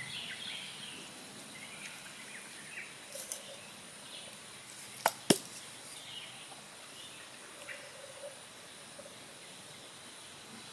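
Quiet woodland ambience: scattered faint bird chirps over a steady high-pitched insect whine. About five seconds in come two sharp clicks about a quarter of a second apart, likely from handling the coffee gear.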